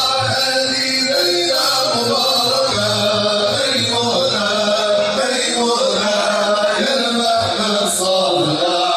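A group of male voices chanting madih, an Arabic devotional praise song for the Prophet Muhammad, in a steady continuous melody.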